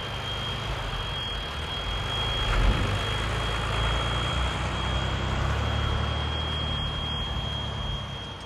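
Heavy machine running steadily with a deep engine rumble and a steady high whine, consistent with an excavator working a hydraulic cutter-wheel attachment. It briefly gets louder about two and a half seconds in.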